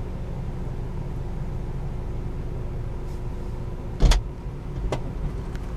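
Ford Escape power liftgate closing: a steady low hum in the cabin, then a heavy thump about four seconds in as the liftgate shuts and latches, followed by a lighter click.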